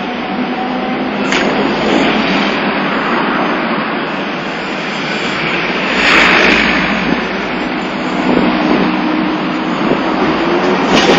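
Road traffic on a city street: cars and vans passing close by over a steady rumble of traffic, with the loudest pass about six seconds in.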